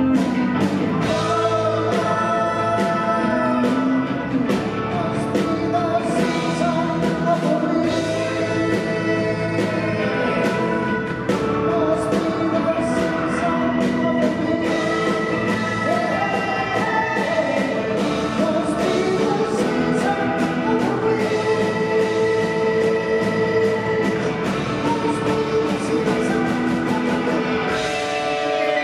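A live rock band playing, with singing over electric guitar and drums. Steady cymbal and drum hits run under long held chords.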